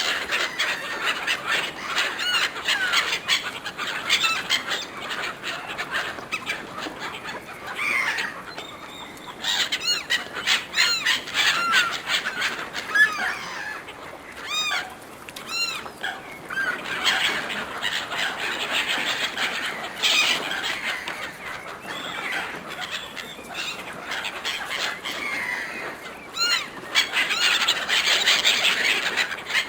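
A flock of gulls calling over food: many overlapping harsh cries and squeals, crowding on one another without a break.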